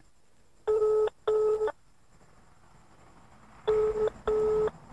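Phone ringback tone playing over a smartphone's loudspeaker: two double rings, each a pair of short steady tones, about three seconds apart. The call is ringing and has not been answered yet.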